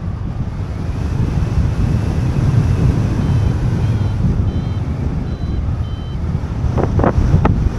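Airflow rushing over the microphone while flying under a paraglider, a steady low rumble. About halfway through, a flight variometer gives a short run of high, even beeps, and a couple of sharp rustles come near the end.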